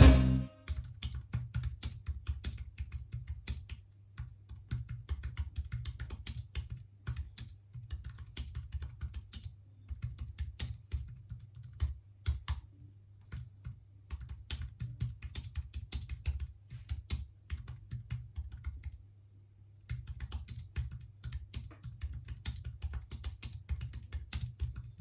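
Typing on an Apple aluminium A1243 keyboard: fast, irregular runs of light clicks from its low-profile scissor-switch keys. The typing breaks off briefly about four, twelve and nineteen seconds in.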